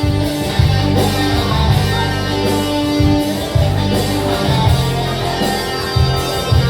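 Band music with no singing: an instrumental passage led by guitar over sustained bass and a steady beat.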